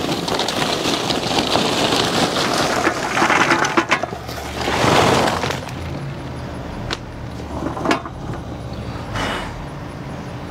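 Charcoal briquettes poured from a bag into the metal hopper of a Char-Griller Gravity 980 gravity-fed charcoal smoker, clattering and clinking as they fall. The pour is heaviest over the first five seconds, then a few scattered clinks follow.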